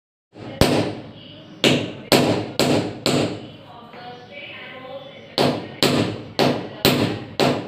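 Hammer blows driving a metal anchor fastener into a hole drilled in a concrete ceiling slab. There are ten sharp strikes at about two a second, in two runs of five with a short pause between.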